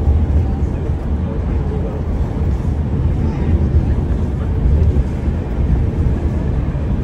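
Steady low rumble of a bus in motion, engine and road noise heard from inside the passenger cabin.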